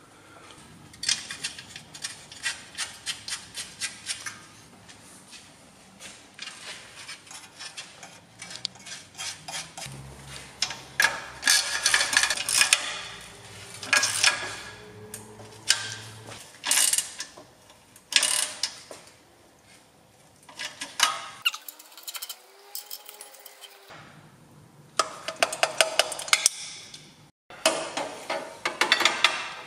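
Ratchet wrench clicking in quick runs and metal tools and exhaust parts clanking as the exhaust downpipe bolts are done up under the car.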